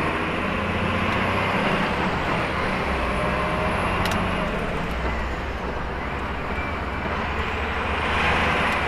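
Scania truck's 480 hp diesel engine running on the move, with a high turbo whistle that slowly rises and falls over it. A single sharp click about four seconds in.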